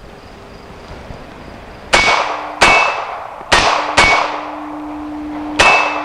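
Glock 42 pistol firing .380 ACP cast-bullet loads as double taps: three quick pairs of shots, each pair about half a second apart, with the last shot right at the end. A steady ringing tone hangs on after the shots.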